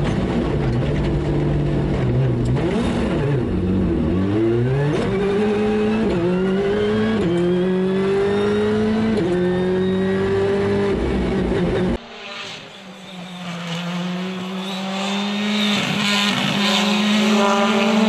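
Rally car engine at high revs. It dips in pitch, then pulls hard through several upshifts, the pitch climbing and dropping back at each shift. About two-thirds of the way through the sound changes abruptly to a quieter engine note that builds again.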